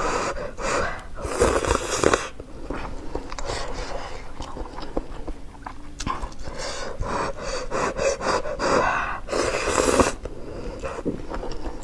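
Noodles slurped into the mouth in several breathy bursts, the loudest about two seconds in and near the end, with chewing and mouth sounds between.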